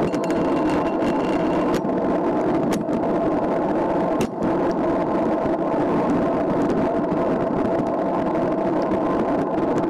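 Steady wind rush and rolling road noise picked up by a camera riding on a bicycle along an asphalt road, with a few brief clicks from bumps.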